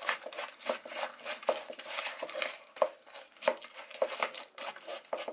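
A metal utensil beating a soft butter, sugar and egg mixture in a plastic bowl, with quick, irregular squelching strokes and clicks against the bowl.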